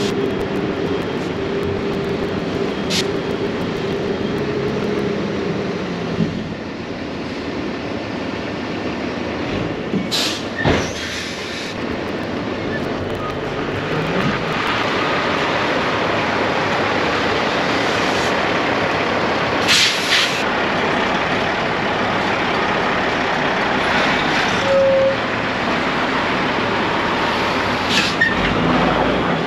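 Heavy diesel truck running steadily, with a few short hisses, the loudest about ten and twenty seconds in.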